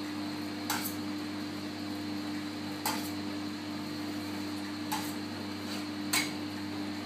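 A chocolate tempering machine hums steadily while a metal scraper taps against a plastic praline mould four times, a second or two apart, as excess chocolate is scraped off the mould.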